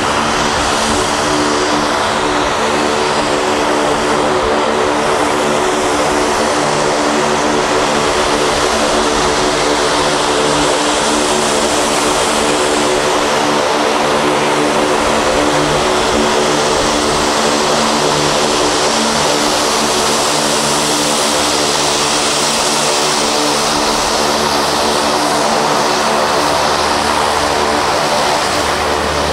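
The Garrett TPE331 turboprop engines of a BAe Jetstream taxiing, a loud, steady propeller drone with engine whine that holds an even pitch.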